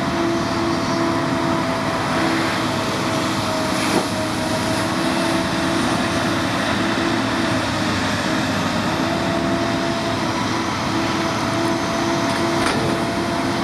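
Excavator engine running steadily with a constant hum, and a single sharp knock about four seconds in.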